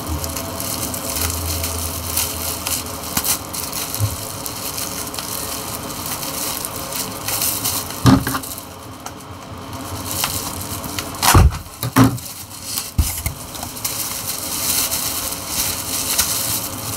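Packaging being handled close to the microphone: continuous crinkling and crackling, with a few sharp knocks in the second half.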